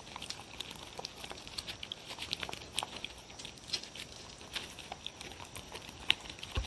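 Two dogs licking and smacking at chicken rice porridge from a pouch held out to them: a run of quick, irregular wet clicks, with one sharper click about six seconds in.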